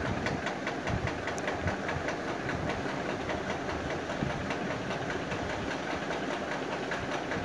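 Water boiling in a stainless steel steamer pot under a glass lid, steaming dhokla batter: a steady bubbling hiss of steam with fine, fast, irregular ticking.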